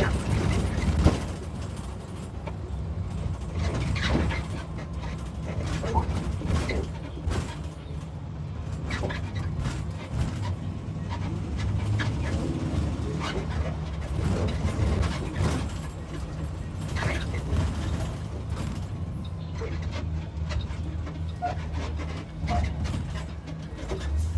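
2022 IC CE gasoline school bus running with a steady low engine drone, with frequent rattles and knocks throughout; the bus has an exhaust leak at its converter.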